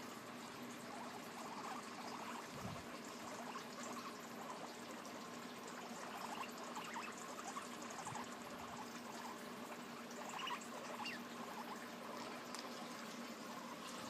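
Faint nibbling and small scuffling of guinea pigs at a piece of carrot and a wooden chew toy: a steady, soft crackle of small clicks, over a low steady hum.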